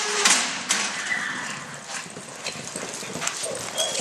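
Horses running on soft arena dirt during a roping run, with hoofbeats, rattling knocks and a few short high yelps.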